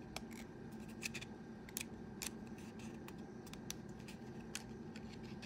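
Light, irregular clicks and scrapes of hard plastic as a 3D-printed ABS-like resin battery shell is pressed back together around a drone battery by hand, over a faint steady hum.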